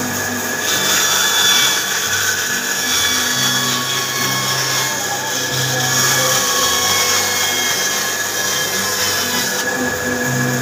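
A woodworking power tool running steadily while it cuts or sands wood: a steady high whine over a rasping noise, with a lower hum that shifts in pitch every second or two.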